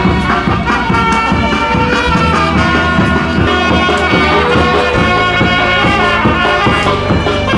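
Instrumental passage of a Vietnamese song with no singing: sustained melody lines, brass-like, over a steady beat.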